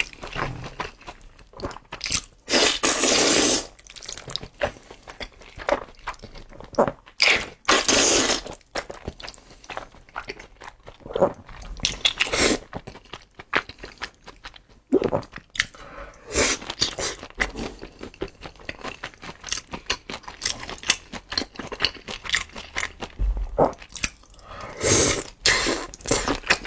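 Close-up mouth sounds of eating noodles and shrimp: steady wet chewing with smacking clicks, broken by several louder bursts of about a second each as mouthfuls of noodles are slurped.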